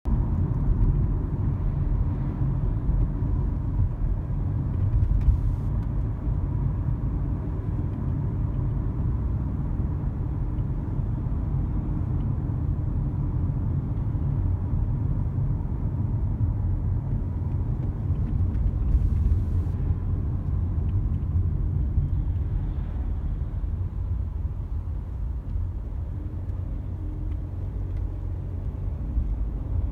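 Steady road and engine rumble inside an Audi A4 B9's cabin, with a faint rattling, ticking vibration coming in about eight seconds in. The owner places the rattle at the front of the dashboard, or maybe the seat.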